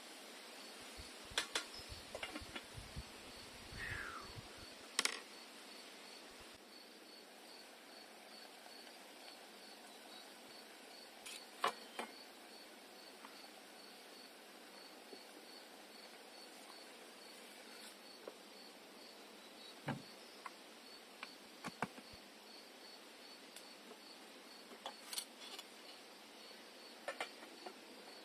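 Cricket-like insect chirping, an even pulse of about three to four chirps a second, over a steady outdoor hiss. Scattered sharp clicks and knocks break in now and then, and a short falling whistle sounds about four seconds in.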